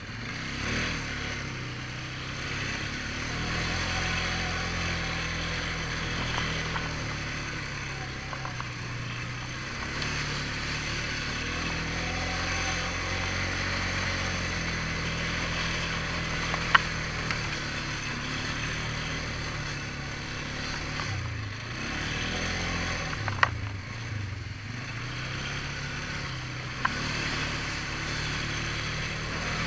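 ATV engine running while the quad rides a muddy trail, its pitch rising and falling with the throttle over steady tyre and wind noise. Three sharp knocks stand out, about halfway through, a little later, and near the end.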